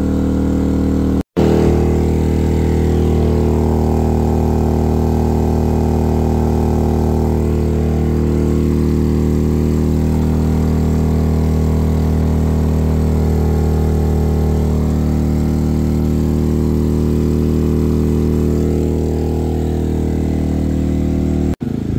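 Maxpeedingrods MXR3500 inverter generator's engine running steadily at a constant pitch under heavy load from two air fryers.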